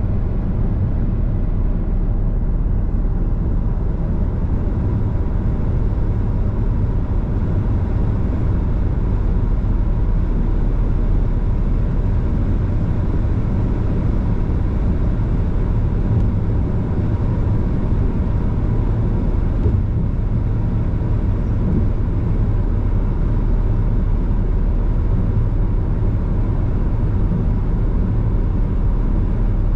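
Car driving steadily on the open road: an even, low rumble of tyre and engine noise with no change in pace.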